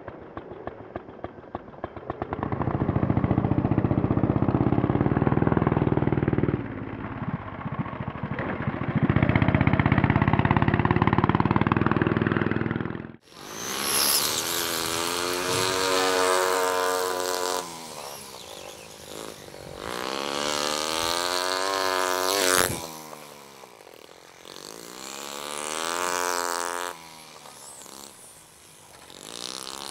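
Nitro RC motorbike's small two-stroke glow engine (an OS 20 aircraft engine) running hard, with a dense, rapid, muffled buzz. After a sudden cut about 13 seconds in, its revs rise and fall three times as the bike accelerates and slows around the track.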